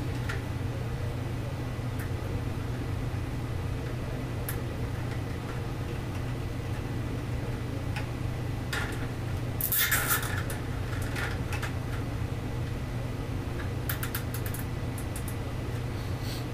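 Light clicks and a short scraping rustle of hands working small pieces into the drilled holes of a clear plastic tube, the loudest rustle about ten seconds in and a quick run of clicks near the end, over a steady low hum.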